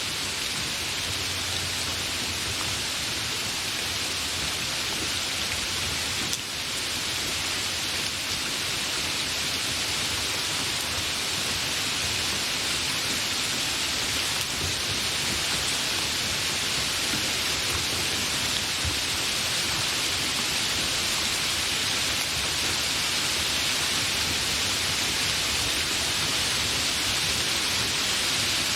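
Steady, fairly heavy rain falling without thunder: a continuous even hiss of drops.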